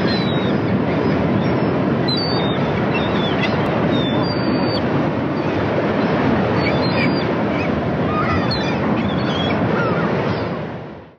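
Steady ocean surf with short bird calls over it, fading out near the end.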